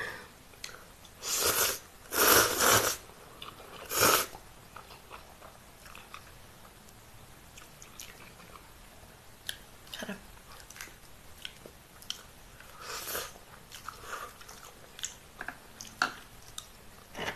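Close-up eating sounds of noodles: three loud, noisy slurps in the first few seconds, then chewing with many small wet clicks and smacks.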